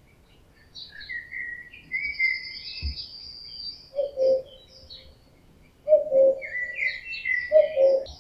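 Common cuckoo giving the male's breeding-season call, a falling two-note "cuck-oo" three times about every two seconds from about four seconds in. Other songbirds twitter at a higher pitch behind it.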